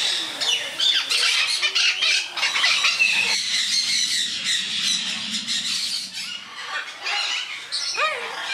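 Yellow-crested cockatoos squawking and screeching: harsh calls follow one after another, some of them with rising and falling glides.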